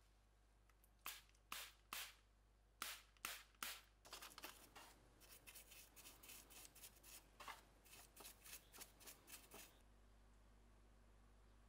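A run of light clicks and scrapes from small hard parts being handled: six separate clicks over the first few seconds, then quicker, denser ticking that stops about ten seconds in.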